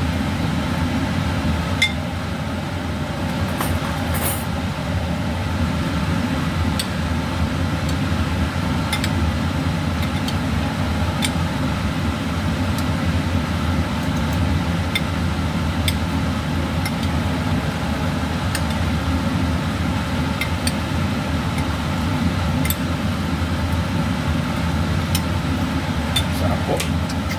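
Spoon and fork scraping and clinking against a glass dish as mayonnaise is mixed into chopped chicken, sharp clicks every second or two, over a steady low droning background hum.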